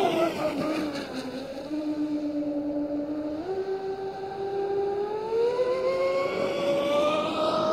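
Radio-controlled speedboat's motor whining as it runs on the water. The pitch drops sharply as it goes past, holds low with a few sudden small jumps, then climbs steadily again as it speeds up.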